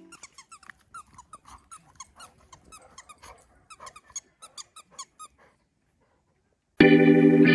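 Dog whining in a rapid string of short, high-pitched squeaks lasting about five seconds. Music starts near the end.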